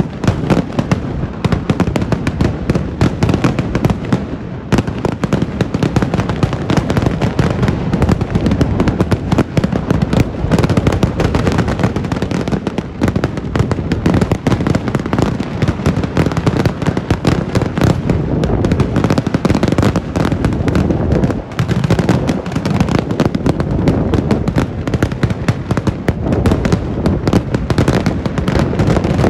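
Kerala temple-festival fireworks barrage: firecrackers and aerial shells exploding in rapid succession, the bangs overlapping so densely that they form an almost unbroken rattle, loud throughout.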